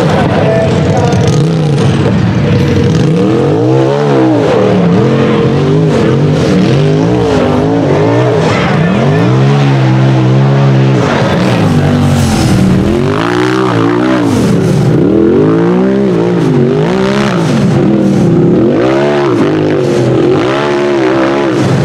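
A tube-chassis UTV's engine revving hard under load as it claws up a steep hill, the revs rising and falling over and over as the throttle is worked.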